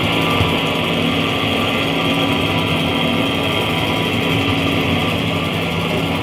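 Background music: a steady, droning texture of held low tones under a high hiss, with no clear beat, sounding much like a running engine.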